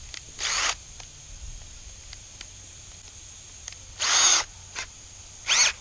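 Cordless drill given short trigger pulses: the motor whirs up and back down in three brief spurts, with faint clicks between, as the keyless chuck is spun to tighten it on a small metal sleeve.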